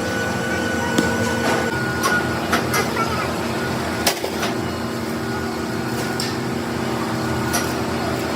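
Workshop machine running steadily with a constant hum of several tones, broken by a few sharp metallic clicks and knocks.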